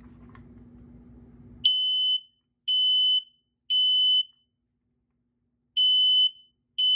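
Kidde 1276 smoke alarm sounding on test: its horn gives high-pitched, steady beeps in the temporal-three pattern, three half-second beeps, a pause of about a second and a half, then the next group of three beginning near the end. It starts about a second and a half in.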